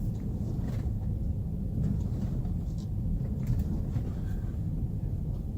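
Steady road and drivetrain rumble inside the cabin of a moving 2011 BMW X3 F25, with a few faint light clicks. There is no rattle from the panoramic roof's crossbar, a sign that the Velcro fix has silenced it.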